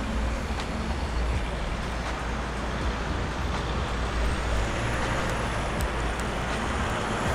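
Steady outdoor background noise with a low rumble of distant road traffic, and a few faint ticks.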